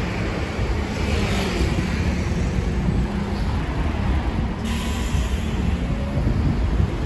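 Road traffic on a city street: vehicles running steadily with a continuous low rumble.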